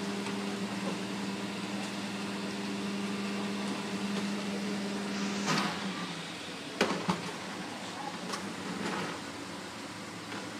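Garbage truck's steady mechanical hum that cuts off about halfway through, followed by a few short knocks.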